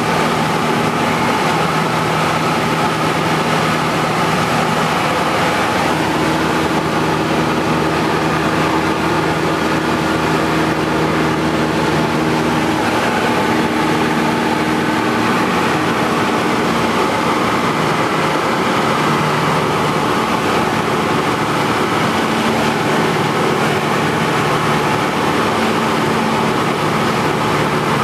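Cessna 172's piston engine and propeller droning steadily in flight, heard from inside the cabin, with rushing air noise; its pitch shifts slightly now and then.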